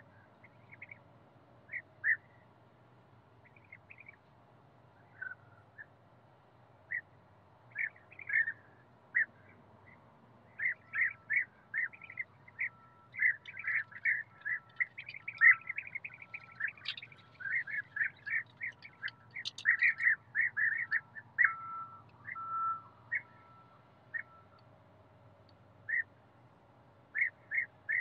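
European bee-eaters calling: short, repeated calls, a few at a time at first, then many overlapping calls in quick succession for about ten seconds in the middle, thinning out again near the end.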